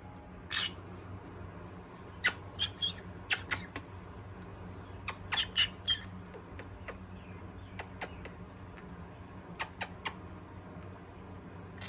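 Pet parrot squawking: short, sharp calls in bursts, one about half a second in, a quick run of several around two to four seconds, a few more around five to six seconds, and three near the end.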